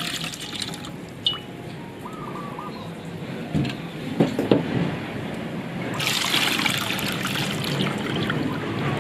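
Coconut water pouring out of a cracked-open green coconut into a stainless steel pot, trickling and splashing. The pour stops about a second in, a few short knocks follow midway, and a second coconut starts pouring about six seconds in.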